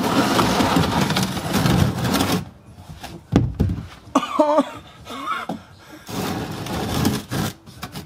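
Oil drain pan scraping and knocking on a concrete driveway as it is pushed and shuffled into place under the car, in irregular spells of rough scraping with a few clicks between them.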